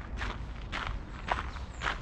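Footsteps of a person walking at an even pace, about two steps a second, each a short scuff.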